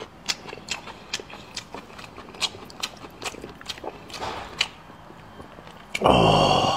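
Close-miked mouth sounds of someone chewing pork: a steady run of sharp, wet clicks and smacks. About six seconds in comes a short, loud pitched sound that falls in pitch.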